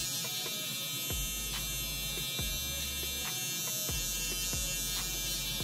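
Electric T-blade beard trimmer buzzing steadily as it cuts the stubble along the neck below the beard line, with light clicks as the blade strokes through the hair.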